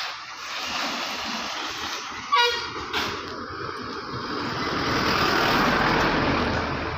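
A bus passing close by, its engine and tyre noise building to its loudest about five to six seconds in. A short horn toot sounds about two and a half seconds in.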